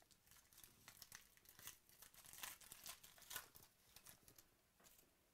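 Faint crinkling and tearing of a trading-card pack wrapper being ripped open by hand, with irregular crackles as the cards are pulled out.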